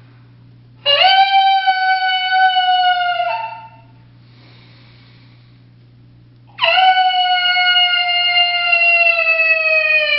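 MFK Game Calls coyote howler call blown by mouth: two long howls, each jumping up quickly to pitch, then holding nearly steady and drifting slightly lower. The second howl begins to bend downward at the very end.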